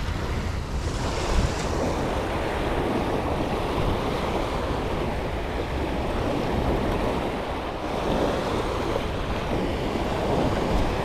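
Small surf waves breaking and washing ashore, with wind buffeting the microphone in a steady low rumble.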